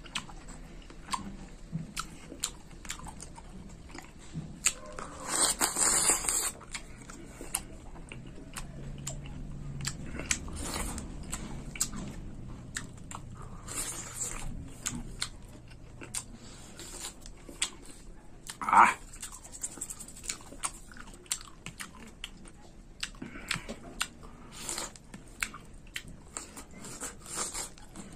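Close-up wet chewing and mouth clicks of a person eating ripe long mulberries, with a noisy burst lasting about a second and a half around five seconds in and one short, loud pitched sound around nineteen seconds.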